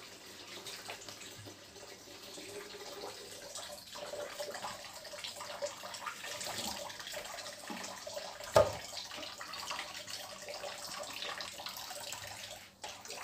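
Water from a kitchen tap running and splashing in a sink while a wet cat is washed by hand. A single sharp knock about two-thirds of the way through is the loudest sound.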